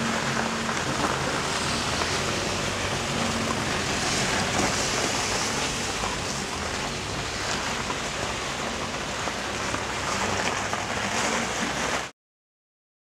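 A car engine running at low speed, with a steady wet hiss of tyres through slush; it cuts off abruptly near the end.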